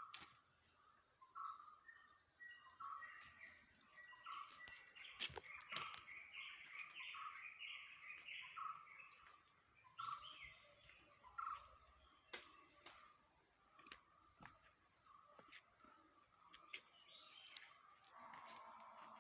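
Birds chirping: short calls repeating about once a second, with quicker chirps in between, over a steady high-pitched tone. A few sharp clicks come through, the loudest about five seconds in.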